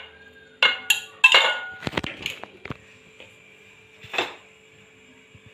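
Steel mug and aluminium kadai knocking together as oil is poured and the mug is set down on the steel stovetop: a quick run of sharp metallic clinks with a short ring in the first few seconds, then one more clink about four seconds in.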